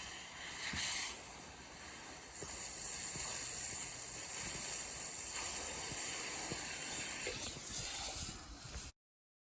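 Pressure washer jet spraying water onto the drill rig: a steady, high hiss that grows louder about two and a half seconds in and cuts off suddenly near the end.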